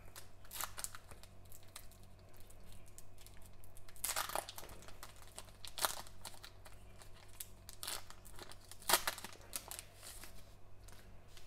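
Foil trading card pack torn open and its wrapper crinkled and pulled apart in gloved hands: irregular crackling and tearing, with the loudest bursts about four, six and nine seconds in.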